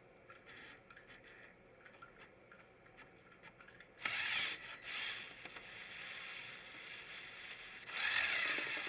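Lego Technic model car's motorised plastic gear train running with the wheels spinning: a loud, noisy whir that starts suddenly about four seconds in after a quiet stretch, then surges again near the end. The drivetrain is in sixth gear, where it struggles.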